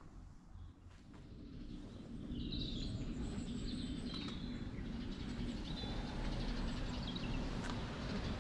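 Small birds chirping over a steady low outdoor background noise, which comes in about two seconds in after a quieter start.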